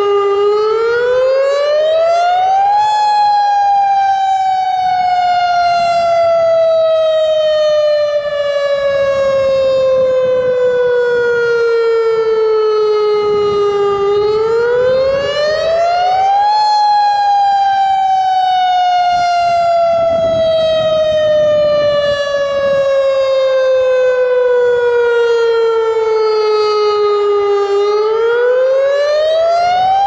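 Federal Signal Modulator electronic tsunami siren of the AHAB system sounding a wail: the pitch rises quickly over about two and a half seconds, then falls slowly over about eleven. There are two full rise-and-fall cycles, and a third rise begins near the end. This wailing tone marks the yearly tsunami drill, not the routine monthly test.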